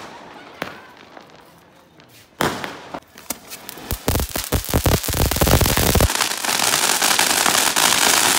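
Diwali fireworks going off: a few scattered bangs, a loud blast about two and a half seconds in, then rapid crackling cracks that build into a continuous loud crackle and hiss from about six seconds in.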